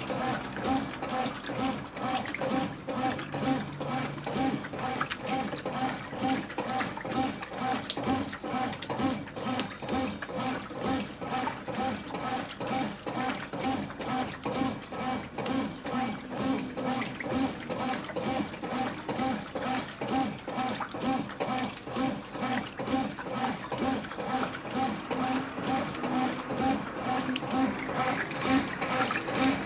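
Brastemp BWQ24A top-loading washing machine agitating a load in the wash stage: water sloshing in the tub in an even, repeating rhythm as the agitator swings back and forth, with the drive motor working underneath.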